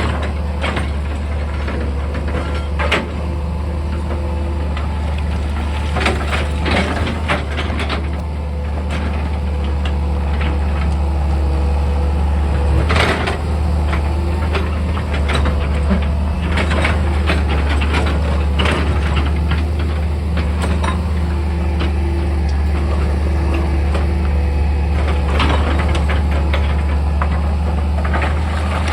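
Excavator's heavy diesel engine running steadily, with scattered knocks and clatters from the working machine and the rock or earth it moves.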